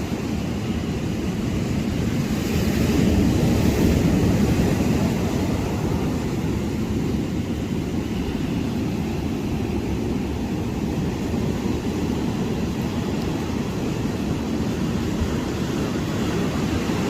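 Steady low rumble of ocean wind and surf, with wind buffeting the microphone.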